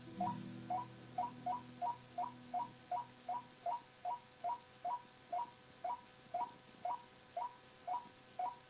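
Recorded calls of a white-breasted waterhen (chim cuốc), played back from an old cassette tape: a steady run of short, slightly falling notes, about three a second. A faint low hum from the recording sits under the calls for the first few seconds.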